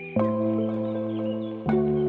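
Background music: two sustained, ringing chords struck about a second and a half apart, each ringing on.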